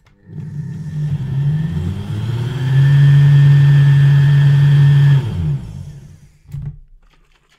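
Small blender's electric motor blending a hot mix of water, butter and matcha: it starts up and rises in pitch over about two seconds, runs steady and loud for a couple of seconds, then winds down with falling pitch and stops about six seconds in.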